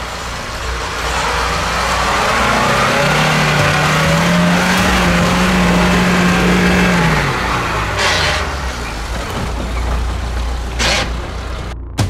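An off-road 4x4's engine revving under load over a loud rushing noise, its pitch rising and holding, then dropping off about seven seconds in. Two sharp knocks follow, around eight and eleven seconds in.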